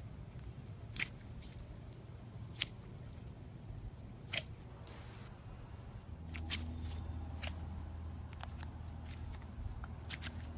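Clear slime being handled, giving sharp sticky clicks and pops every second or two. A steady low hum comes in about six seconds in.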